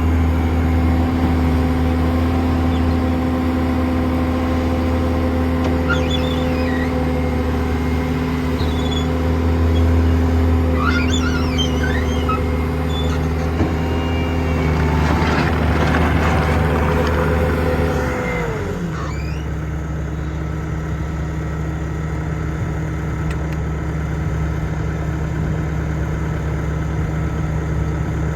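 Bobcat T750 skid steer's diesel engine running steadily at high throttle, then throttled down to a lower speed about two-thirds of the way in. A few brief squeaks and a short rattle are heard over the engine midway.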